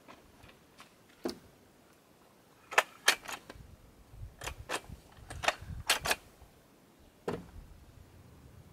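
Aluminium telescopic ladder being extended: about ten sharp metal clicks and clacks at irregular intervals as the sections slide out and lock into place.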